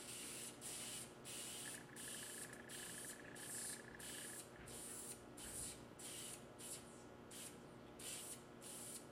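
Preval aerosol sprayer spraying DuraCoat firearm finish onto a rifle buttstock in a string of short hissing bursts, about two a second, laying on a third light coat.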